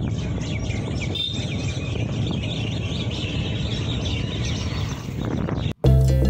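Many birds chirping over a steady rush of road and traffic noise, heard from a moving ride along a street. Near the end the sound cuts off abruptly and loud background music with plucked guitar starts.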